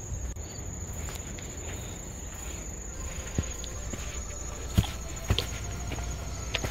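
Footsteps on a weathered wooden boardwalk path, a few sharp thumps on the boards in the second half, over a steady high trill of insects.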